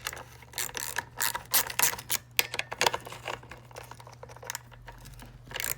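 Irregular metallic clicks and knocks of a 13 mm wrench tightening the chainsaw's bar nuts back down after the chain has been tensioned. A steady low hum runs underneath.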